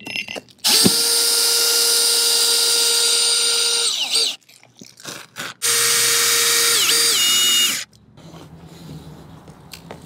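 Power drill driving screws through round metal plates into a flat roof: two long runs of the motor's whine, each dropping in pitch at its end, with a few short trigger blips between them.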